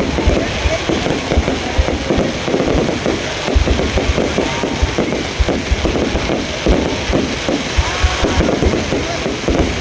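Aerial fireworks barrage: a dense, irregular run of booms several a second, overlapping with continuous crackling.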